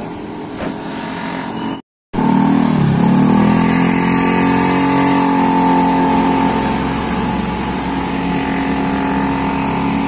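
Tour bus diesel engine passing close, its note dipping and recovering once, then running steadily to a level drone. Before it, about two seconds of quieter road noise end in a brief gap.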